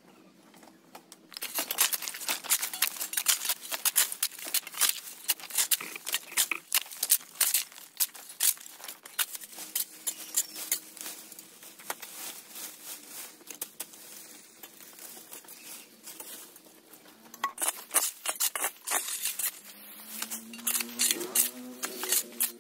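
Dense, irregular crackling and rustling, like dry material being handled or crumpled. It starts about a second in, thins out in the middle and picks up again. A brief pitched, sliding sound comes near the end.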